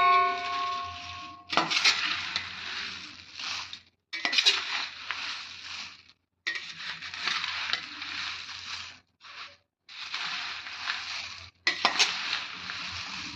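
Crisp roasted puffed rice being stirred and tossed with a spoon in a pan, a dry rustling in strokes of a couple of seconds each with short pauses between them.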